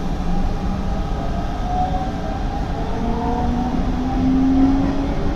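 Hanshin 5500-series electric train running, its traction-motor whine rising steadily in pitch as it accelerates from about halfway in, over the low rumble of wheels on rail, heard from inside the car.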